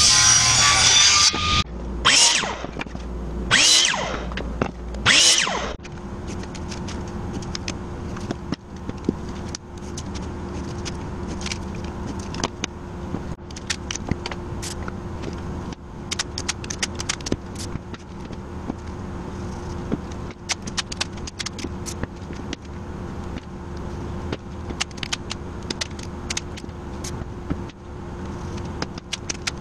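A table saw runs briefly at the start, then three loud short rasping bursts follow. After that comes a long stretch of light crackling and clicking as black tape is pressed and smoothed onto a wooden letter block, over a steady low hum.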